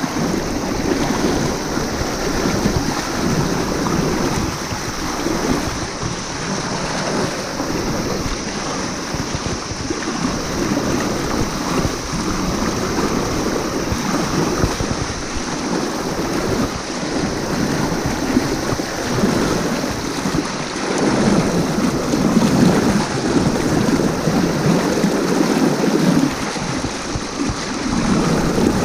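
Fast river rapids rushing and splashing close to the microphone, a steady loud roar of water whose lower churning swells and eases every few seconds.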